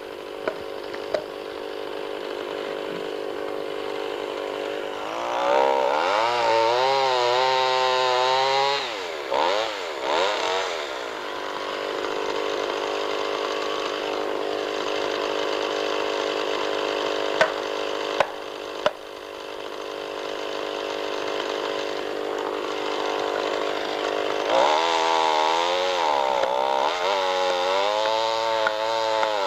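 Two-stroke chainsaw running steadily, then revved up and cutting into the trunk twice, about five seconds in and again near the end, its pitch rising and dipping under load as it makes the felling back cut. A few sharp knocks stand out over the engine, at the start and around the middle.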